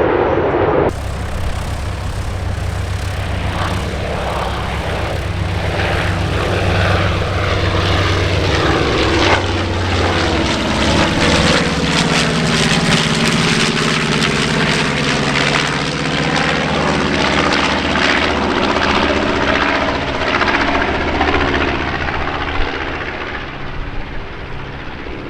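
Propeller-driven piston-engine aircraft flying past, its engine droning steadily, with a sweeping, phasing tone in the middle of the pass as it goes by overhead.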